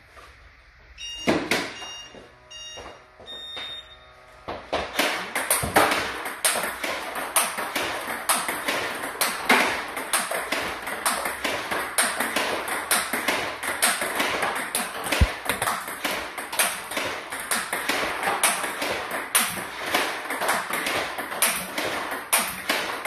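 Table tennis forehand topspin drill: a rapid, steady stream of sharp clicks and taps as the ball is struck with a hard DHS Hurricane 2 Neo rubber and bounces on the table. It starts about five seconds in, after a few scattered ringing pings.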